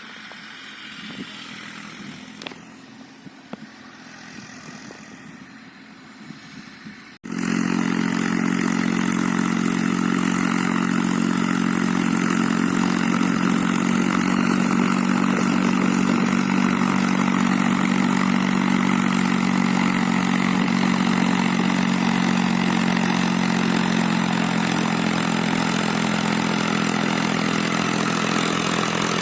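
For about seven seconds there is quieter outdoor sound with a few sharp clicks. Then the Eicher 480 tractor's three-cylinder diesel engine cuts in abruptly, loud and running steadily at constant speed while pulling a double disc plough.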